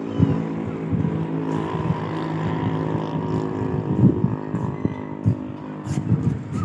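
A motor or engine running steadily, a low droning hum, with irregular low thumps on the microphone.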